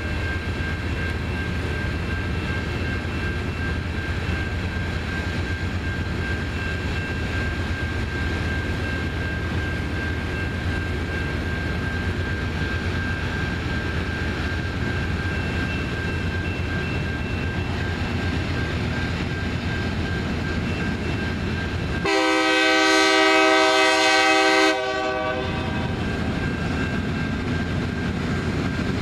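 Loram rail grinder passing while grinding the rail: a steady grinding rush with a thin high whine over a low engine rumble. About 22 seconds in, a train air horn sounds one long blast of about two and a half seconds, louder than the grinding.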